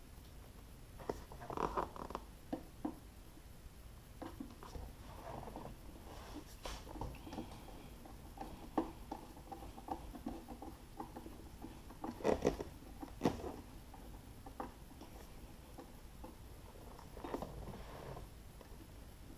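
Hand screwdriver working screws in a sheet-metal amplifier box, with scattered light clicks, metallic knocks and rattles. A cluster of louder knocks comes about twelve seconds in.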